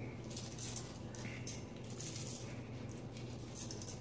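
Dry barbecue rub shaken from a plastic shaker bottle: a faint run of short, irregular shakes, the granules rattling in the bottle and pattering onto the chicken and foil.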